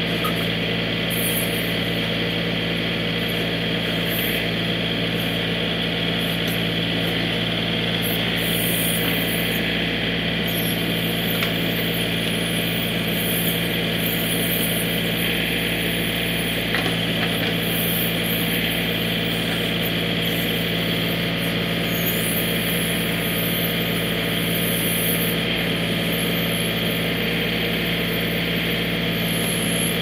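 John Deere 3032E compact tractor's three-cylinder diesel engine running at a steady speed.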